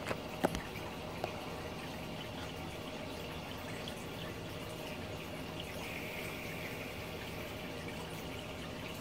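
Aquarium filter running with circulating water trickling steadily over a faint low hum, with a few light taps in the first second.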